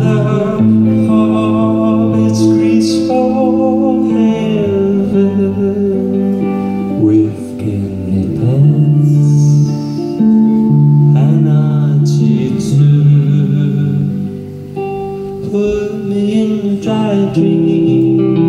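Live band music: electric guitar played over held bass notes that shift every second or two, with a singer's voice coming in at times.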